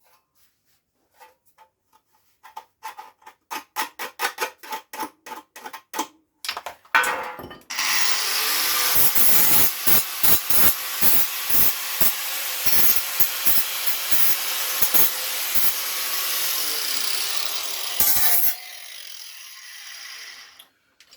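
A run of quick, evenly repeated strokes, then a power tool cutting sheet steel for about ten seconds, loud and gritty with repeated catches as it bites. Near the end it leaves the metal and runs on more quietly for a couple of seconds before stopping.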